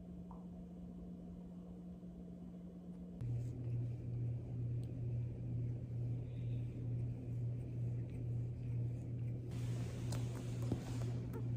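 A domestic cat purring close up, a steady low rumble that swells and fades with its breaths, starting about three seconds in after a faint steady hum. Near the end there is rustling of bedding as the cat grooms and shifts.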